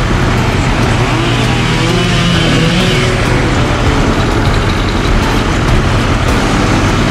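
Heavy equipment engine running loud and steady, its pitch wavering slightly.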